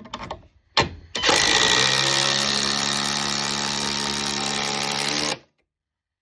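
Craftsman impact driver: a few clicks, then the driver runs steadily for about four seconds at full speed and stops abruptly.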